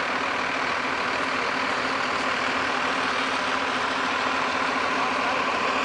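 Fire engine's diesel engine running steadily with a constant low hum.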